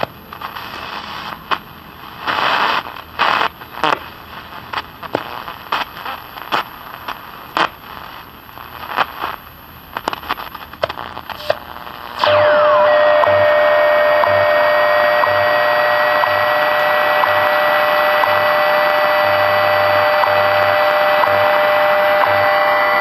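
General Electric World Monitor multiband transistor radio tuned on the 20-meter shortwave band: static with crackles and short bursts of noise, then, about twelve seconds in, a loud steady whistle of several tones sets in suddenly and holds.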